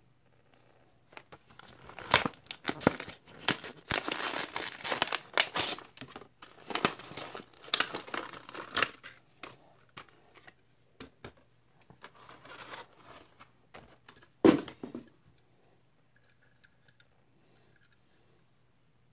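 Plastic blister pack and cardboard backing of a die-cast toy car being torn open and crinkled by hand, in dense bursts of crackling and tearing for the first half. Lighter crinkling follows, then one sharp knock near the end.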